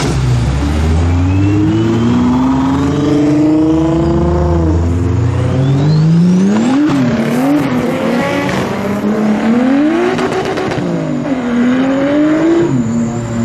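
Performance car engines accelerating hard away one after another, revving up through the gears: the pitch climbs, then drops sharply at each shift, several times over. A faint rising whistle runs over the first few seconds.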